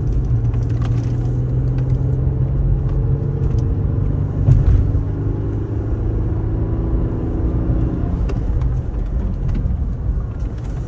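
Mercedes-Benz car driven along a rough forest road, heard from inside the cabin: a steady engine note over tyre and road rumble, with one loud thump about halfway through as the car hits a bump.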